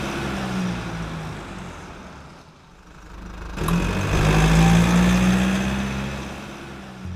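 A car engine sound effect: the engine runs loud and fades out about two and a half seconds in, then comes back louder about a second later and slowly fades again.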